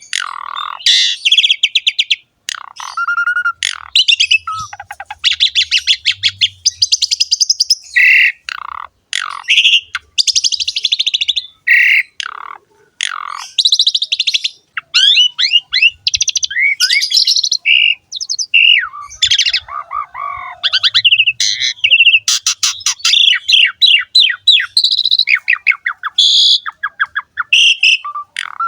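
Asian pied starling (jalak suren) singing energetically: a continuous medley of harsh, rapid rattling trills and buzzy phrases mixed with short whistled notes, the rattling 'ngerek' that keepers prize in a bird in full song.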